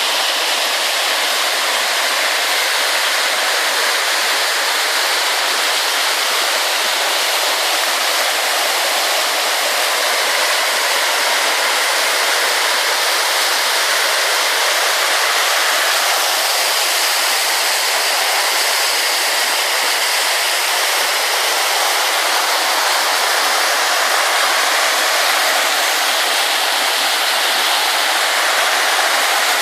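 Loud, steady rushing of a mountain gorge stream pouring over rocks, with no pauses or changes.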